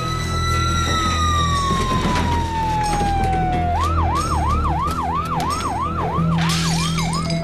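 Police siren: a long wail that climbs, then sinks slowly, then switches about four seconds in to a fast yelp of about three quick rising-and-falling sweeps a second. A low steady drone runs underneath.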